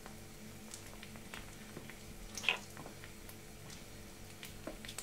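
Faint kitchen sounds of a cloth being wiped over a counter: small taps and rubs, with one short scrape about two and a half seconds in, over a steady low hum.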